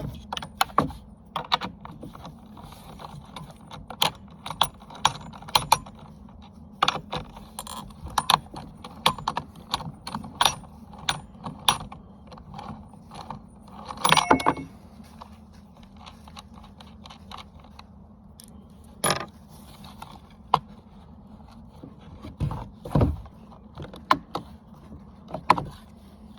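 Clicks, clinks and rattles of a Neotec NCS2500 top-handle chainsaw's metal and plastic parts being handled and fitted, with a longer scraping rattle about fourteen seconds in.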